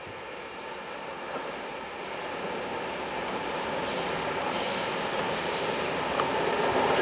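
Class 66 diesel freight locomotive with its EMD two-stroke V12 approaching with a train of wagons, its engine and wheel noise growing steadily louder as it nears. A high squeal from the wheels on the rails comes in for a couple of seconds about four seconds in.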